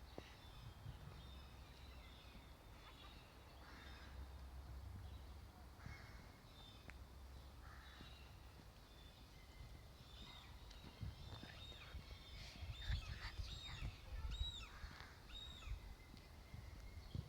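Birds calling in the open air: scattered faint calls, then a run of high, arching chirps repeated several times about three-quarters of the way through, over a steady low rumble.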